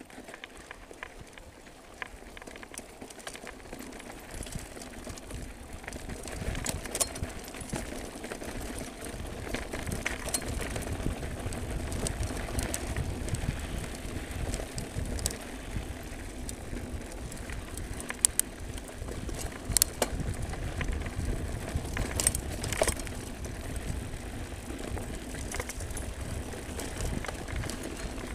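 Mountain bike riding fast down a dirt trail: wind rumbling on the microphone and tyre noise on loose dirt, getting louder over the first several seconds as speed builds, with frequent sharp knocks and rattles as the bike hits bumps.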